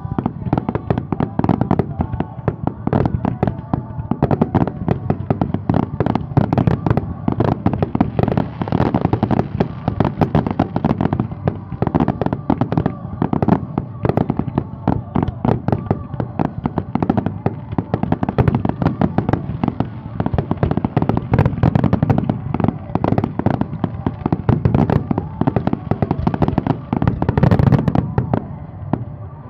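Aerial fireworks display: many shells bursting in quick succession, a dense, continuous barrage of loud bangs and crackles.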